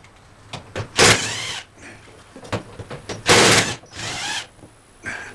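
A small hinged door or lid being handled and opened or shut, with a squeaky scrape about a second in and a louder clatter a little past the middle.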